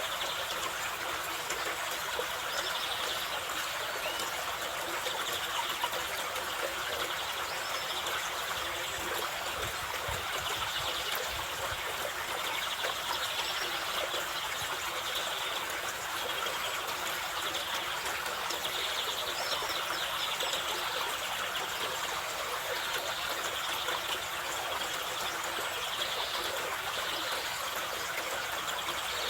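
Mountain river in the Carpathians rushing steadily, an even wash of flowing water.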